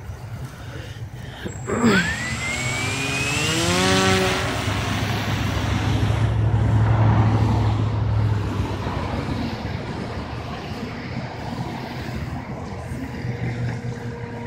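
Electric motor and propeller of a large RC foam plane spinning up at hand launch: a whine starts suddenly about two seconds in and rises steadily in pitch for about two seconds. It then settles into a steady propeller whir that slowly fades as the plane climbs away.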